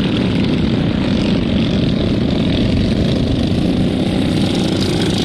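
Engines of racing ride-on lawn mowers running steadily at speed as they pass along the track.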